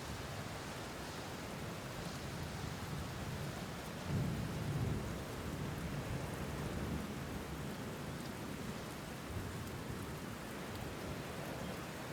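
Steady rain falling, with a low rumble of thunder that swells about four seconds in and fades over a few seconds.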